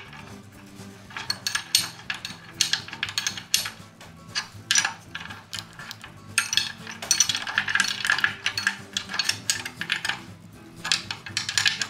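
Adjustable wrench and nuts clinking and clicking against the bolts of a cast-iron wheel hub as the nuts are turned and tightened, in many short, uneven bursts. Quiet background music runs underneath.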